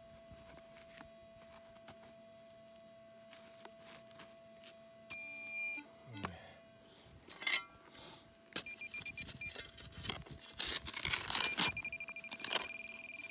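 Metal detector beeping on a target: a short beep about five seconds in, then a longer held tone from about eight and a half seconds. Under the held tone, a digging tool scrapes and crunches through gravelly soil, loudest in the last few seconds.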